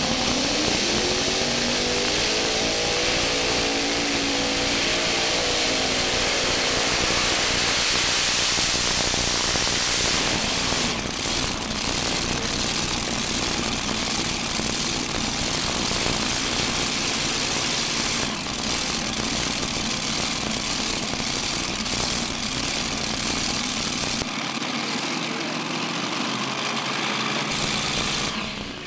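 Multi-engine modified pulling tractor at full throttle making a pull: the engine note climbs in pitch over the first several seconds, then holds as a loud, steady roar.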